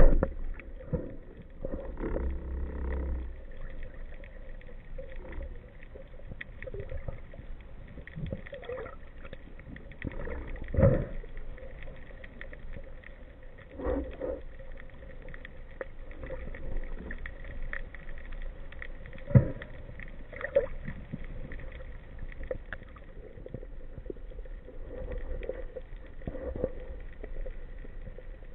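Muffled underwater sound picked up through a waterproof camera housing: a steady low water rush with a few dull knocks, the sharpest about eleven and nineteen seconds in.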